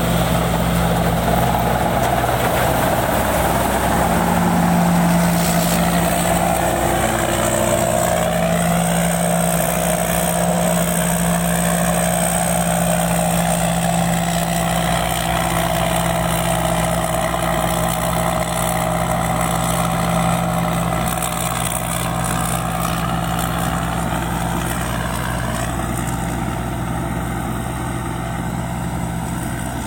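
Pan Charoen rice combine harvester running steadily, its engine and machinery giving a constant heavy hum that slowly gets quieter over the last several seconds.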